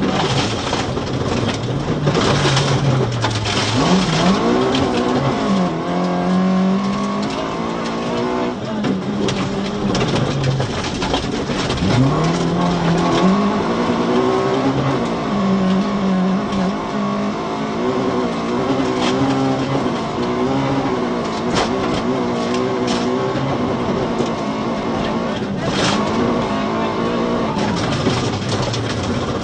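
Volvo 940 rally car's engine heard from inside the cabin, revving hard through the gears: the pitch climbs again and again and drops quickly at each upshift of the sequential gearbox. Repeated knocks and clatters come from the car running over the rough gravel road.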